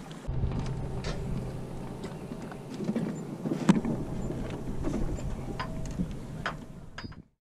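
Scattered knocks and clunks of a small wooden boat and its gear against a dock, with one sharp knock about halfway through, over a steady low hum. The sound cuts off abruptly just before the end.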